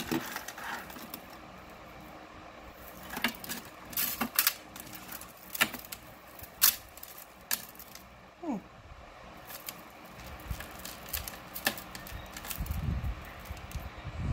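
Costume jewelry being handled: metal chains, pendants and beads clicking and clinking against each other and the tray, as scattered sharp clicks.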